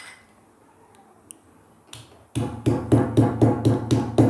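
A few faint clicks, then about two seconds in a loud, regular beat of about four strokes a second starts over a steady low hum, like a looped background music track.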